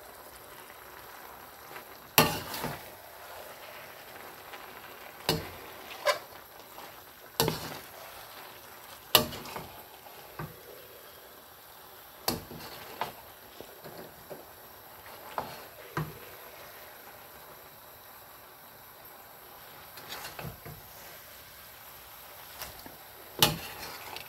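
Noodles and vegetables stir-fried in a steel wok: a slotted spatula knocks and scrapes against the pan every second or few, over a steady low sizzle. The knocks are the loudest sounds, strongest about two seconds in and near the end.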